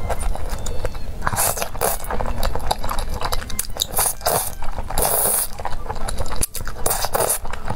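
Close-miked eating: chewing a mouthful, then slurping thick sauce-coated noodles, with wet mouth sounds coming in irregular bursts.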